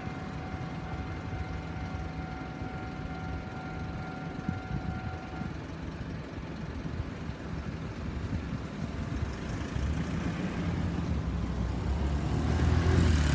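An engine's low rumble builds up and is loudest near the end, as a vehicle comes close with a rising hiss of noise. A faint steady high tone stops about five seconds in.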